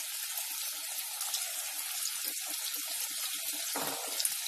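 Potato pakoras deep-frying in hot oil in an aluminium kadhai: a steady sizzling hiss with faint crackling pops.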